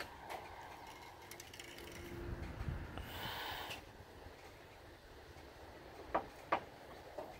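Handling noise from a carburetor being turned over in the hand: a rustle about three seconds in, then three short, sharp clicks near the end.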